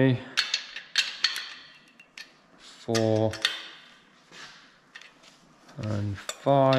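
Metal clicks and clinks of a torque wrench's 15 mm socket being fitted onto cylinder-head nuts and turned, snugging them lightly in the tightening sequence. The clinks come in irregular clusters, between a few short spoken counts.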